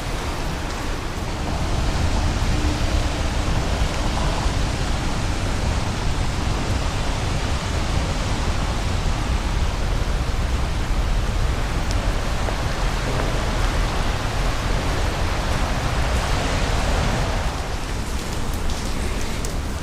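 Steady rain falling, a constant even hiss with a low rumble beneath it, a little louder from about two seconds in.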